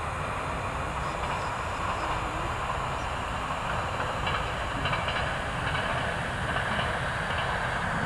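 Steady wind rumble on the microphone, with the faint sound of an electric RC hotliner flying high overhead. A faint higher tone comes in about halfway through.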